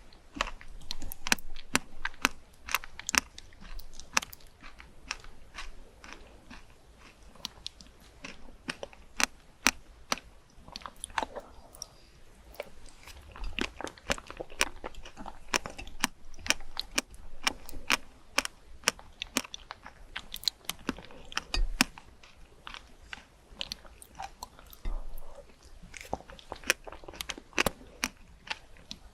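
A person biting and chewing crunchy fruit: a steady run of irregular, crisp crunches.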